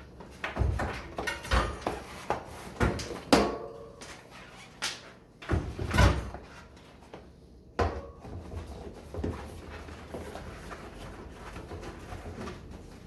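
A mountain bike tire being worked onto its rim by hand: a series of knocks and thumps with short rubbery squeaks, busiest in the first half, then quieter handling.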